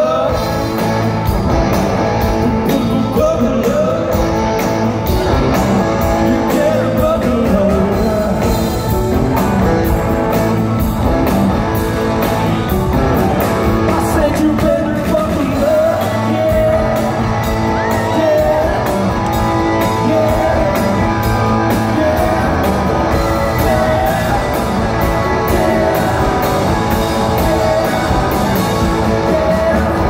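Live band performance: a man singing lead over electric guitars and a drum kit, steady and loud, with the reverberation of a large hall.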